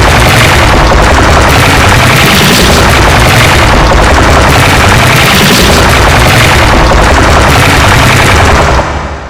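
Heavily distorted, clipped remix audio: a continuous, very loud wall of crackling noise over a heavy, thudding low end, fading out in the last half second.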